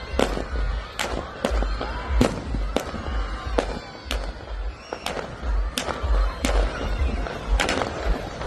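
Fireworks going off in a quick, irregular run of sharp bangs, about a dozen, over music with a heavy bass.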